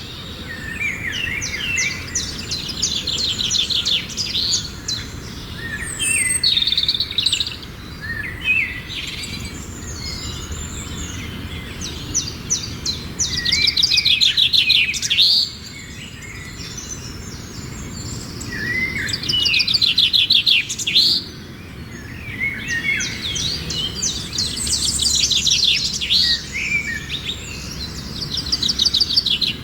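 Birds singing and chirping, with fast high trilled phrases that come back every few seconds over a steady low background noise.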